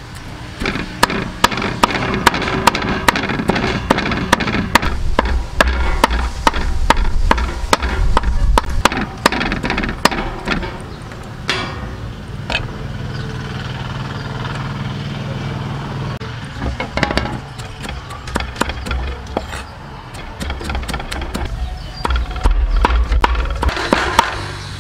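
Cleaver chopping rapidly on a wooden chopping block, mincing boiled cow-head meat at about four strokes a second. The chopping pauses for a few seconds near the middle, then resumes.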